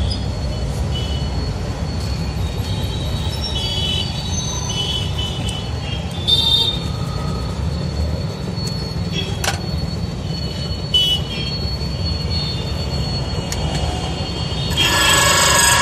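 Key-duplicating machine: small metal clicks and clinks as keys are handled and clamped over a steady low hum, then about a second before the end a loud, high metallic screech starts as the cutter wheel begins cutting a key blank.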